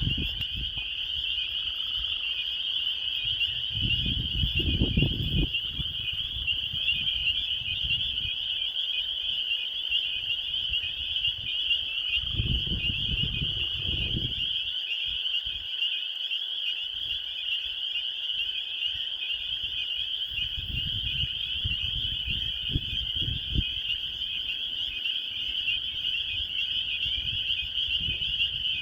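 A swamp frog chorus: many frogs calling at once in a continuous high-pitched trilling wash that does not let up. Three times a low rumble rises underneath and fades.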